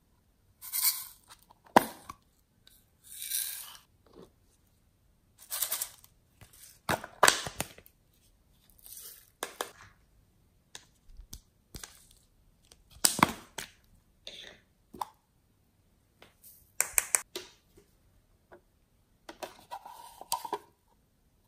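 Hands handling small plastic toys, cases and packaging of slime add-ins: a string of separate crinkling, rustling and clicking noises, each brief, with quiet gaps between.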